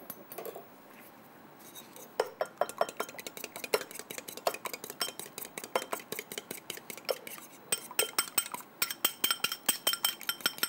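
A metal fork beating a raw egg in a small bowl: rapid clinks of the tines against the bowl, several a second, starting about two seconds in.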